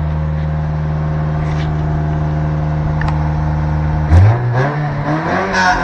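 1985 Toyota MR2's four-cylinder engine idling smoothly, a steady purr with its misfire cured, then revved once about four seconds in and settling back down near the end.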